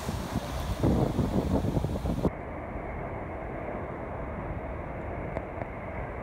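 Sea surf washing over granite rocks, with wind buffeting the microphone. About two seconds in, the sound cuts abruptly to a steadier, duller and quieter rumble of the sea.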